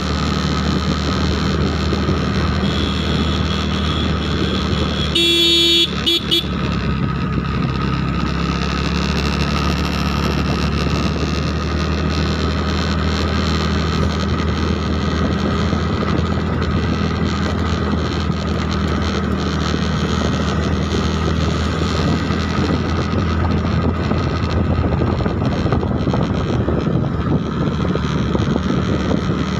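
Steady drone of a vehicle engine on the move. About five seconds in, a horn sounds for about a second, then gives a short second toot.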